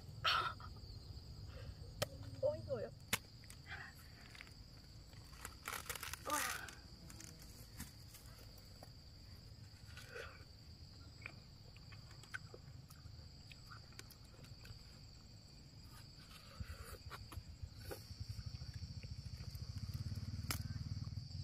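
Insects chirring steadily at a high pitch, with scattered short knocks and crunches as a ripe watermelon is handled, broken open and bitten into; the loudest of these come in the first few seconds and about six seconds in.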